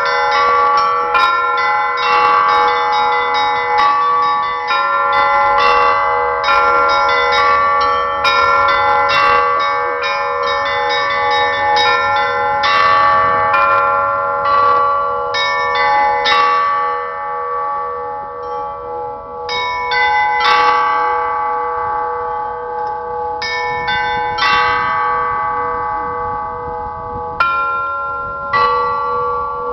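Russian-style bell ringing on a set of bells: rapid, dense strikes on the small high bells over the sustained ring of larger, lower bells. Around the middle the strikes become sparser for a few seconds before the pattern picks up again.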